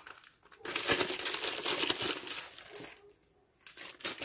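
Plastic shipping mailer bag crinkling as it is handled and crumpled, for about two seconds, then a pause and a few lighter rustles near the end.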